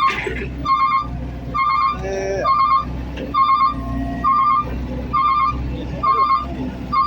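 Heavy machine's warning alarm beeping steadily, about one beep a second, each beep a warbling tone, over the low rumble of a diesel engine running.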